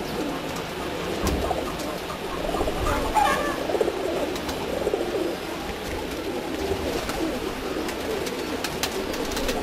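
Several domestic pigeons cooing steadily, their calls overlapping, with a few faint clicks.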